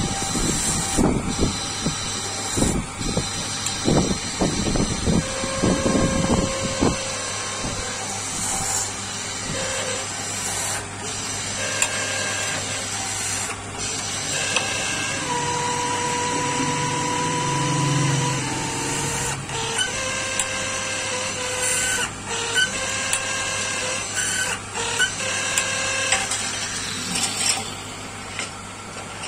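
Workshop power tool running with a steady hum. For the first several seconds there are irregular low knocks; after that, held whining tones from the tool working the piece start, stop and shift in pitch every few seconds.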